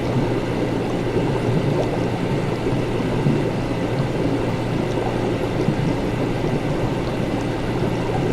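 Laboratory ambience: a steady gurgling of liquid over a constant low machine hum.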